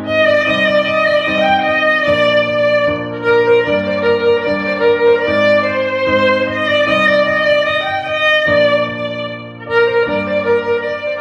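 Instrumental cover of a pop song: a violin plays a melody of long held notes over a repeating lower accompaniment.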